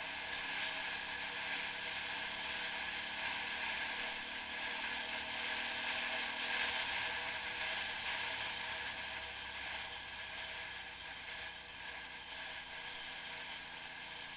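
Steady rush of wind buffeting the microphone of an action camera mounted on a moving motorcycle, with a low engine drone under it. The rush eases a little in the second half.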